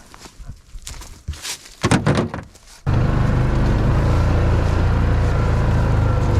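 A couple of knocks, then about three seconds in a steady low engine drone starts abruptly and runs on: the Toro Titan Max zero-turn mower's engine running.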